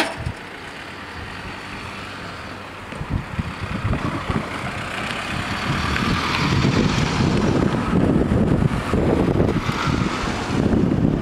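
Cars driving over the level crossing and past close by, their engines and tyres getting louder from about three seconds in and loudest in the second half.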